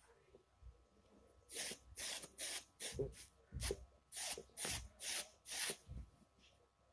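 Small metal cutter scraped across woven cloth in quick repeated strokes, about two to three a second, starting about a second and a half in, shaving off loose yarn ends.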